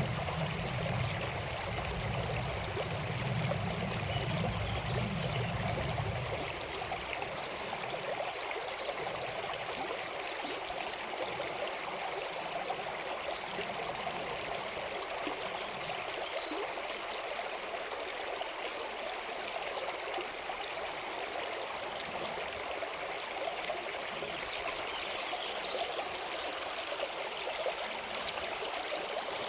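River water running steadily, a continuous rushing with trickling over the top. A low rumble underneath fades out about six seconds in.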